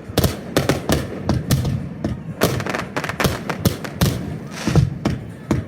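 Fireworks display shells bursting in quick succession, several sharp bangs and deep thuds a second at irregular spacing.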